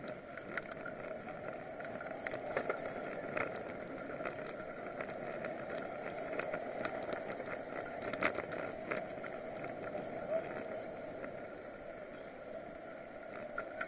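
Riding noise of a bicycle on pavement picked up by a bike-mounted action camera: a steady hiss of tyres and air with frequent small clicks and rattles from the mount.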